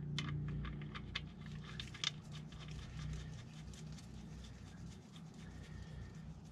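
Faint small metallic clicks and taps as a gloved hand threads the SMG gearbox drain plug, with its new aluminium crush washer, back in by hand. The clicks come thick at first and thin out after about two seconds, over a low steady hum.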